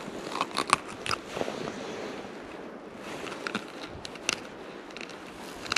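Dry snow crunching and crackling underfoot on the ice, in short uneven crunches with a few sharper clicks.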